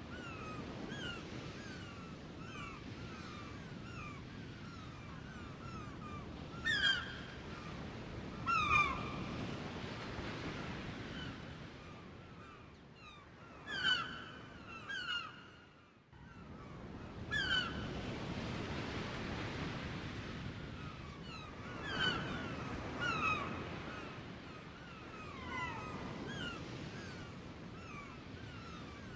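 Sea waves washing in, a steady rush that swells and fades, with a brief break about halfway through. Many birds chirp over it throughout, and a few louder calls stand out.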